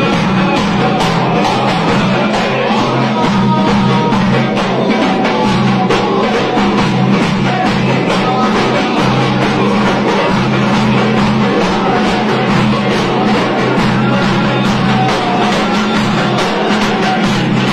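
Loud music with a dense drum beat and a melody over a steady low drone.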